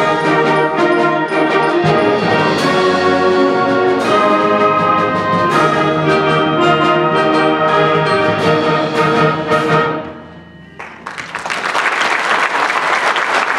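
Concert band playing the loud closing bars, full brass and woodwind chords punctuated by sharp percussion hits, cutting off together about ten seconds in. After a brief hush, the audience breaks into applause.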